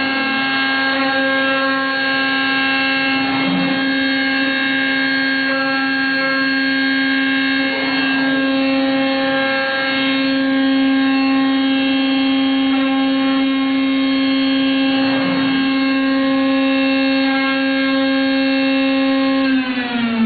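Heian 5-axis CNC router's spindle running at speed: a steady high whine with a stack of even overtones. Near the end its pitch begins to fall as the spindle winds down.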